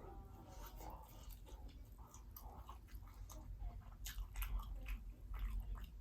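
A person chewing fried seafood close to the microphone, with irregular sharp crackling clicks from the bites.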